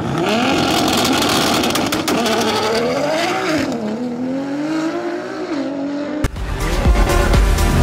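Drag racing car accelerating hard, its engine pitch climbing and dropping several times as it runs up through the gears. About six seconds in, music with a heavy bass cuts in.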